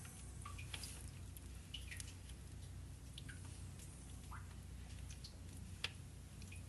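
Faint, scattered water drips plinking in a flooded limestone cave, with one sharp click about six seconds in, over a low steady hum.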